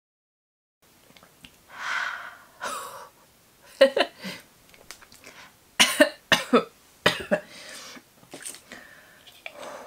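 A woman coughing and breathing hard after gulping a fiery ginger-and-cayenne shot: a hissing exhale, then a run of short sharp coughs from about four seconds in, the burn catching her throat.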